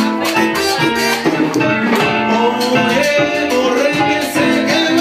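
Cuban dance band playing live: guitar and percussion in a steady dance rhythm, with singing.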